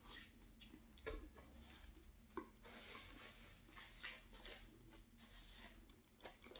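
Faint chewing of a chicken sub sandwich, with scattered soft mouth clicks and smacks.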